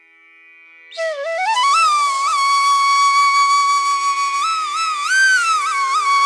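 Intro music: a soft steady drone, then about a second in a single melody line enters, sliding up and holding a long note with bends and ornaments over the drone.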